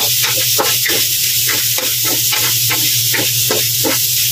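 Ground pork and cubes of beef blood sizzling in a metal wok while a wooden spoon stirs and scrapes through them, about three strokes a second.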